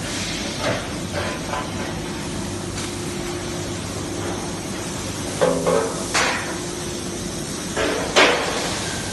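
Beam welding machine and factory machinery running with a steady hum, broken by metal clanks and knocks now and then, the loudest a cluster about five and a half seconds in and a sharp one about eight seconds in.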